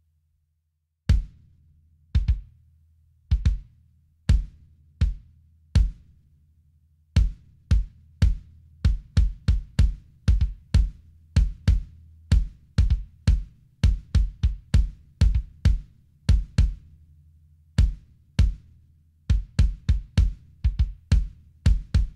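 Kick drum played with a single foot pedal: a mesh-headed bass drum fitted with a stainless steel Wronka-Drums trigger. Each stroke is a sharp beater click with a low boom that fades; single strokes about a second apart at first, then quicker patterns with doubled strokes from about seven seconds in.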